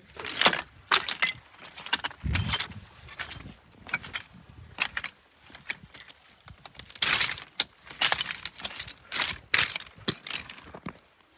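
Footsteps on loose, flat slate stones: the thin shards clink, crunch and scrape against each other with each irregular step, quieter for a few seconds around the middle.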